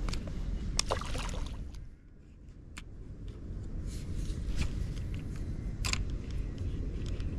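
Wind rumbling on the microphone, with a few sharp clicks and rustles from a spinning rod and reel being handled.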